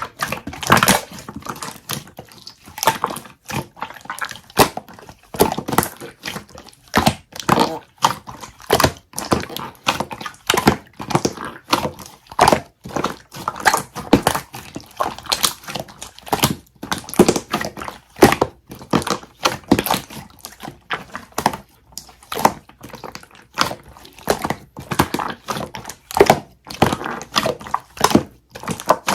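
Hardened, unmelted clear honey-jelly slime being handled, giving an irregular run of sharp clicks and crackles, several a second.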